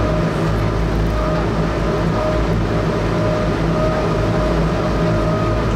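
Amphibious tour bus's engine running steadily under throttle as the vehicle gets ready to drive out of the river onto land. A thin whine comes and goes over the drone.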